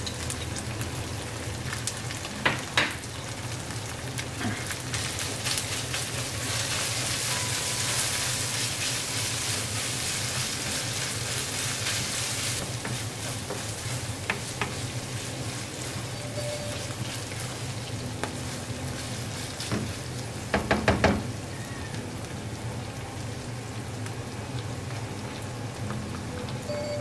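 Minced pork sizzling steadily as it fries in a nonstick pan, the sizzle growing louder for several seconds in the middle. A plastic spatula knocks and scrapes against the pan a couple of times, with a quick run of knocks about two-thirds of the way through.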